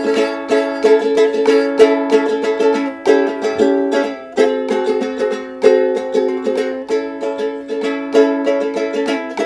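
Strummed acoustic string instrument playing a steady rhythmic chord pattern, an instrumental break with no singing.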